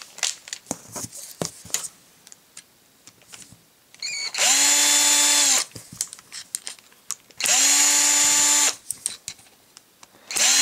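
An old Black & Decker drill turning a Phillips bit to back out the screws holding a cordless drill's plastic gearbox to its motor. It makes two short runs of a steady whine, each spinning up and winding down after about a second, and a third starts near the end, with light clicks and handling noise between the runs.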